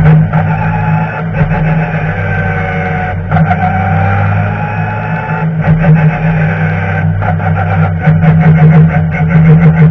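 Racing BMW touring car's engine and drivetrain heard from inside the stripped cockpit, running hard and steadily, its pitch climbing slowly, with a few brief breaks in the sound.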